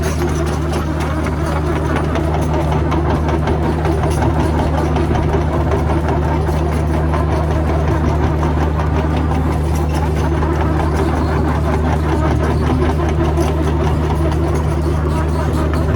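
Backhoe engine idling steadily, a low, even hum with no revving.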